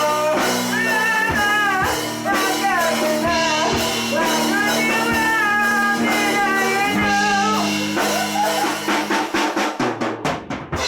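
Live rock kapak band jamming: a bending, wavering lead melody over bass and drum kit, ending in a rapid drum fill of quick strikes near the end.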